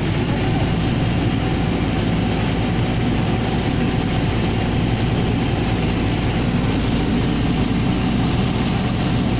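Wooden river ferry's engine running steadily under way, a constant low drone, with water rushing along the hull.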